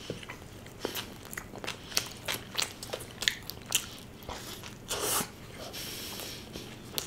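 Close-up mouth sounds of biting and chewing a corn-and-cheese spring roll burger: irregular wet and crunchy clicks, with a louder bite about five seconds in.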